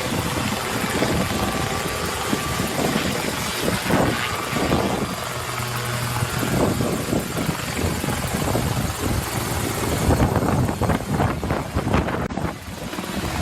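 Helicopter rotor and engine running, a dense noise with a repeated beat of the rotor blades.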